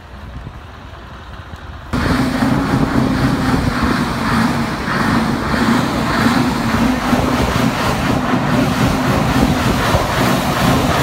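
Heavy truck diesel engine running steadily and loudly, coming in abruptly about two seconds in over quieter outdoor background.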